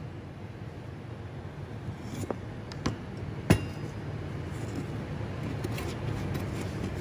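Three sharp metallic knocks and clinks, the loudest about three and a half seconds in, as the laser-welded steel plate T-joint is handled on the worktable, over a steady low hum.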